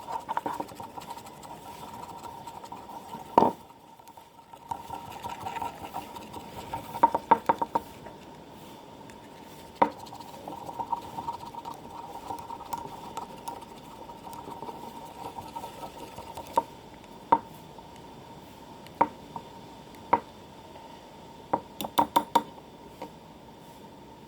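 A brush stirring thin and thick white PVA glue together in a container, with scattered clicks and taps against the container's side, a few coming in quick clusters. A faint steady hum runs underneath.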